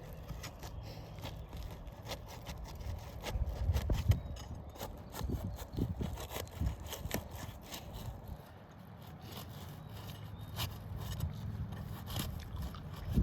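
An asphalt roof shingle being pried and peeled loose from its sealant strip: irregular scraping and rubbing, with many short clicks and crackles.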